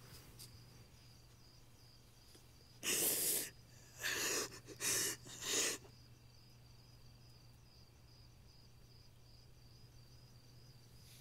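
A person sobbing: four loud, ragged breaths between about three and six seconds in, over steady cricket chirping.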